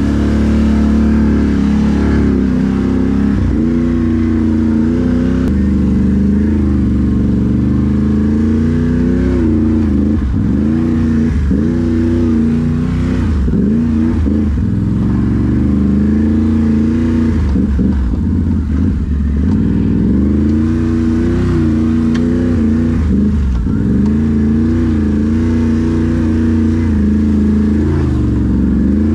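Can-Am ATV engine running under constantly changing throttle, its pitch climbing and falling as it is revved and eased off, with several quick dips and climbs in the middle.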